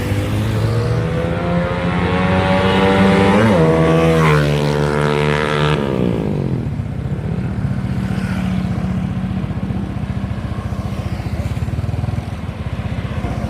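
Single-cylinder four-stroke motorcycle engine of a drag-tuned 170cc Yamaha Vega being revved. The revs climb, blip sharply twice, then drop back to a steady idle about six seconds in.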